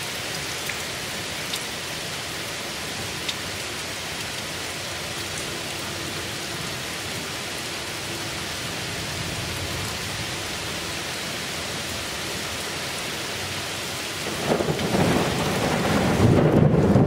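Heavy rain falling steadily on pavement and trees, with a few faint drop ticks. Near the end a loud, rough low rumble of thunder builds up over the rain.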